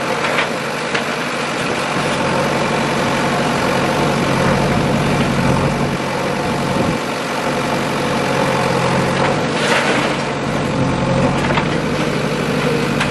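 JCB 3DX backhoe loader's diesel engine running steadily as its backhoe arm digs and dumps soil, with a brief noisy burst about ten seconds in.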